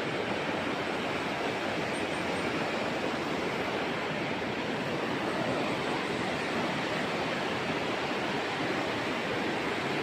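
River water rushing, a steady even noise that does not change.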